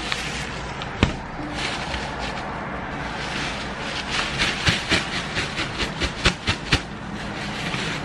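Thin plastic bag rustling and crinkling as sugar is poured into it and it is shaken to coat the food inside. There is one sharp crackle about a second in and a dense run of crackles in the second half. Steady traffic noise runs underneath.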